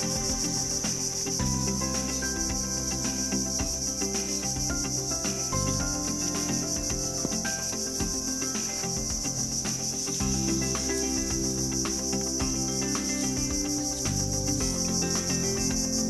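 A steady, high-pitched insect drone from the mangrove, finely pulsing and unbroken, over soft background music with held chords that change every few seconds.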